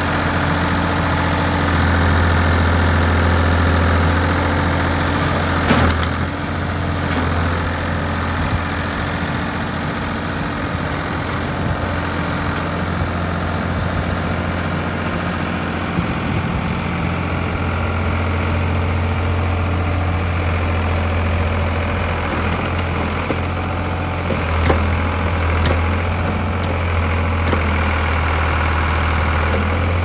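Ford 555 backhoe-loader's engine running steadily at a low, even speed while the machine moves and works its hydraulics. There is a short knock about six seconds in and another near the end.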